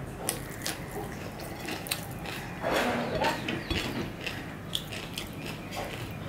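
Close-miked chewing of khichuri, with wet mouth clicks and smacks scattered throughout, and fingers squishing rice on the plate. A louder, rougher stretch of noise comes near the middle.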